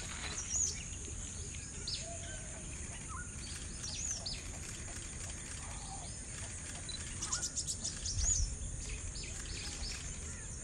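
Birds chirping, with scattered short calls and a quick run of chirps about seven seconds in, over a steady high-pitched hum. A brief low rumble comes about eight seconds in.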